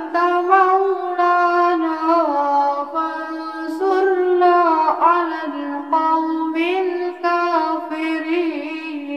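Melodic music: one sustained, ornamented line that slides and wavers over a steady held low note, in long unbroken phrases.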